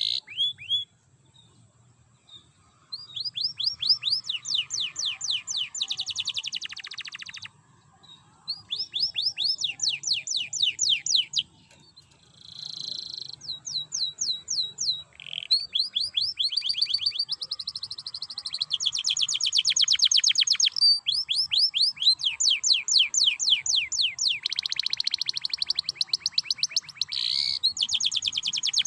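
Domestic canary singing: long phrases of fast trills of repeated high falling notes, broken by harsh buzzing rattles, with short pauses between phrases.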